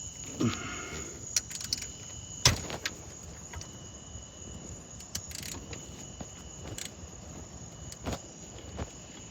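Crickets chirping steadily, with scattered clicks and knocks over them, the loudest a sharp knock about two and a half seconds in.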